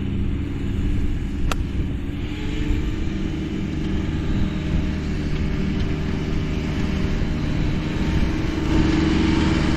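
A 52-degree wedge strikes a golf ball, one sharp click about a second and a half in, over the steady running of a ride-on mower engine and wind buffeting the microphone.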